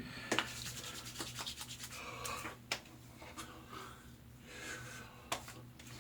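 Hands rubbing aftershave balm into freshly shaved face and neck: a soft, scratchy rubbing in uneven strokes, with a few sharp clicks along the way.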